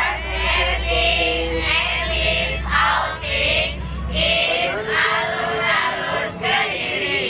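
High-pitched voices singing together, with a low steady hum underneath that stops a little past halfway.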